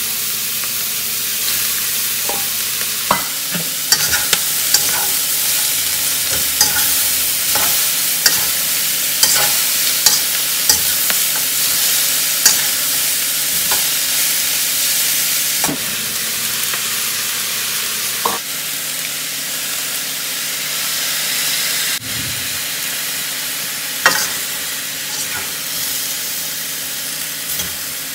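Pork belly and vegetables sizzling in a hot wok, a steady frying hiss, with scattered clinks and scrapes of a metal slotted spatula against the wok as the food is tossed.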